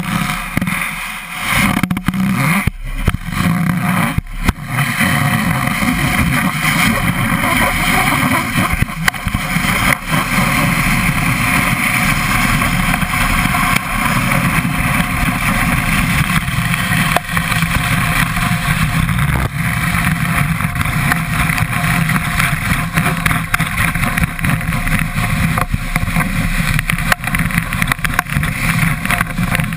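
Skis sliding down groomed packed snow, heard from a camera mounted on the ski: a steady rushing and rumbling of the ski on the snow mixed with wind on the microphone. A few sharp knocks come in the first five seconds.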